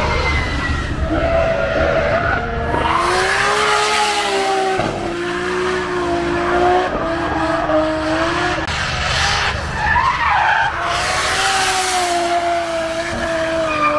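Drift car engine held high in the revs, its pitch wavering up and down, with tyres screeching and skidding. The tyre noise swells about three seconds in and again around eleven seconds.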